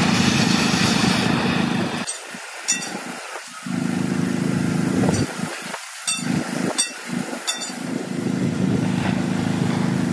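A motor running with a steady hum that drops out twice, about two seconds in and again about five seconds in. About five sharp clicks sound while it is out.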